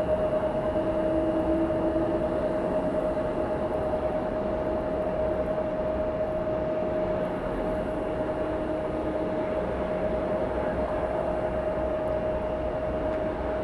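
Jet airliner engines running at low power, a steady rumble with a held humming tone.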